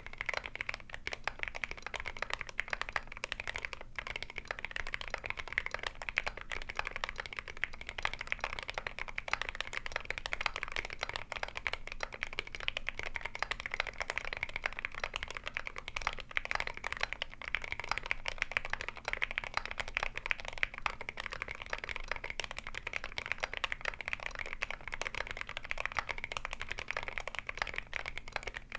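Continuous typing on a GMMK Pro mechanical keyboard with lubed Akko Jelly Black linear switches, a brass plate, a tape mod and MSA keycaps: a steady, dense stream of keystrokes that does not pause.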